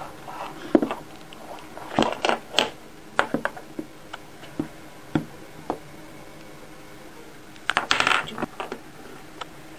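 Light metallic clinks and taps as a cat paws at a silver chain necklace and its plastic-lined gift box, coming in quick clusters about two seconds in and again near the end, with scattered single ticks between.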